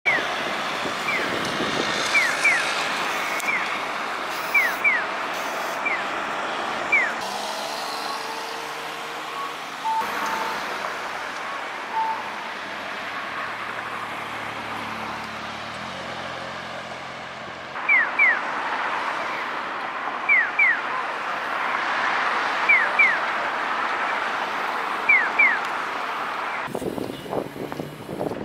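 Street traffic noise with a pedestrian crossing's electronic chirping signal: short falling chirps, mostly in pairs, repeating every couple of seconds. The chirps drop out for a stretch in the middle, leaving only the traffic hum.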